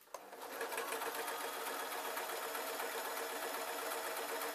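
Electric sewing machine starting up just after the beginning and then running steadily at speed, stitching a line along folded fabric.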